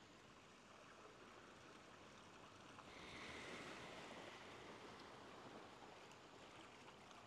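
Faint ocean waves washing on a shore, an even hiss of surf that swells about three seconds in and then eases.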